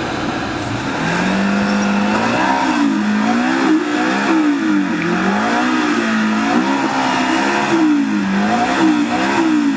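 ATV engine revving, stepping up in pitch about a second in and then rising and falling over and over, roughly once a second.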